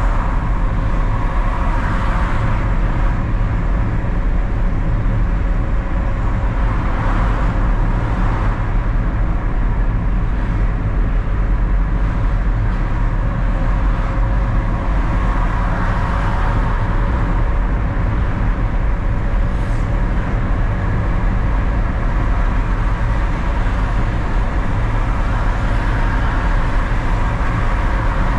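Car cabin noise while driving at steady speed: a continuous low rumble of engine and tyres on the road, with a faint steady hum and a few mild swells as other traffic goes by.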